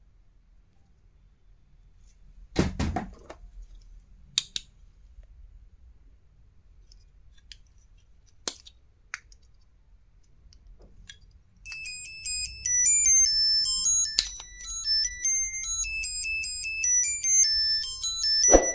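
A few handling clicks and one louder thunk, then, about twelve seconds in, a high electronic beeping tune starts, like a ringtone.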